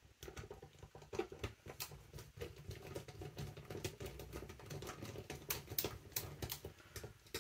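Faint, rapid small clicks and taps of a screwdriver and fingers working screws out of an airsoft rifle's gearbox shell.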